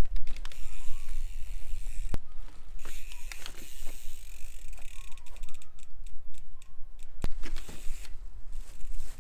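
Bicycle being ridden on a trail: rattling and quick clicking from the bike, with two sharp knocks, about two seconds in and about seven seconds in, over a steady low rumble.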